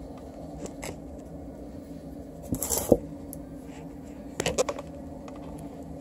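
Two short bursts of light knocking and clatter, about two and a half seconds in and again near four and a half seconds, over a steady low hum.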